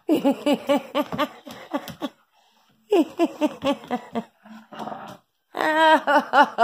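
A woman laughing in three runs of quick, rhythmic bursts, with short pauses between them.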